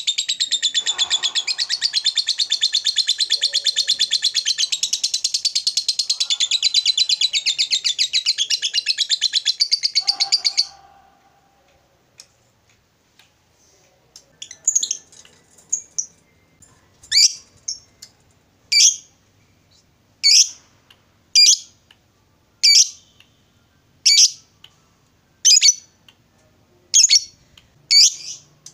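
Lovebird giving a long, very rapid high chattering trill for about ten seconds (the long 'ngekek' that lovebird keepers prize), which cuts off suddenly. After a short pause it gives sharp single high calls, evenly repeated about every second and a half.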